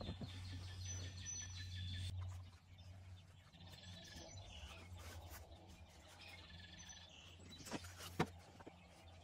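A kitchen knife scraping chocolate spread across a slice of bread while birds chirp, over a low steady hum that stops after about two seconds. Near the end the knife knocks sharply against the spread jar twice as it scoops more out.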